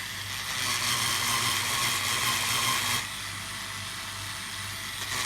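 Floor polisher running with a loud, steady grinding noise. The grinding is louder for the first few seconds, drops off about three seconds in, and swells again near the end.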